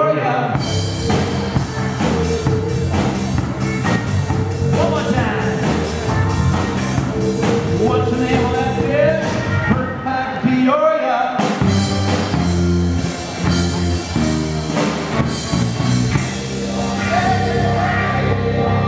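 Live rock band playing: drum kit, electric bass and electric guitar, with a voice singing. The bass and drums drop out briefly about ten and a half seconds in, then the band comes back in.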